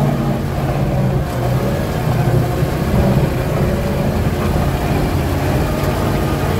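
GAZ-66 truck's engine heard from inside the cab, running steadily under load as the truck crawls up a steep sandy slope.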